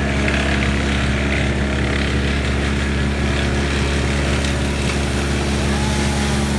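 A large engine running steadily at a constant speed, with a deep hum that does not change.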